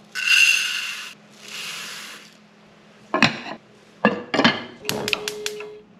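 Dry rice poured from a measuring cup into an empty clay rice pot in two hissing pours, then the pot's ceramic lid set down with several knocks and clinks, the last of them ringing briefly.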